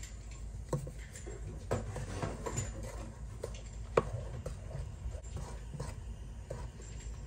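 Wooden spoon stirring and mashing a thick mixture of half-frozen chopped strawberries, cranberries and sugar in a pot, with irregular soft knocks and scrapes of the spoon against the pot; the sharpest knock comes about four seconds in.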